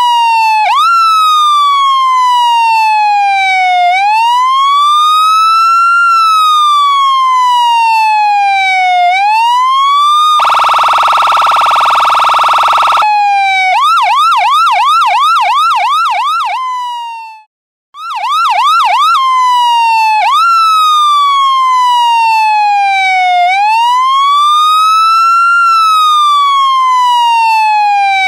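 Electronic emergency-vehicle siren cycling through its tones: a slow wail rising and falling about every five seconds, a fast yelp warbling several times a second, and a couple of seconds of steady buzzing horn in the middle. The siren cuts out briefly about two-thirds of the way through and starts again with the yelp before returning to the wail.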